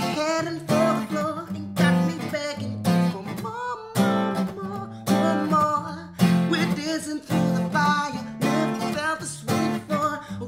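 Acoustic guitar strummed in a steady groove, with a sharp accented strum about once a second.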